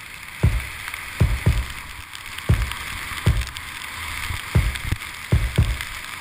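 Skis hissing and sliding over wet snow during a downhill run, with wind rushing over the camera microphone. Short dull thuds come irregularly about every half second to second.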